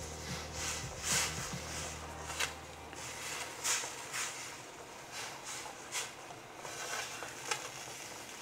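Wooden chopsticks stirring and pressing dry wheat noodles down into a pot of boiling water: soft, irregular swishes and light knocks against the pan.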